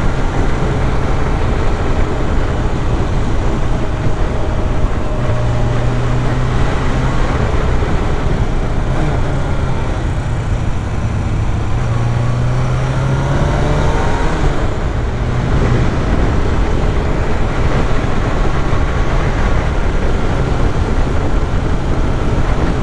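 Motorcycle engine running at road speed under steady wind rush, heard from the rider's seat. About halfway through the engine note climbs for a couple of seconds, then drops away.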